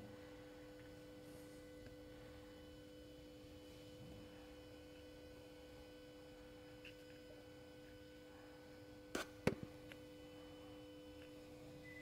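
Quiet drone of steady held tones from soft background music, with two sharp clicks close together about nine seconds in.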